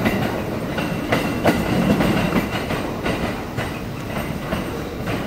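JR East E231 series 900 commuter train pulling away over the points, its wheels clacking over rail joints and crossings above a steady rolling rumble that slowly fades.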